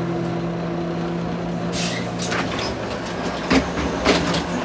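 Volvo 7700 city bus with its Volvo D9C diesel idling, heard from inside the cabin as a steady low hum. A short hiss of air comes about two seconds in, and two sharp knocks, the loudest sounds here, follow near the end.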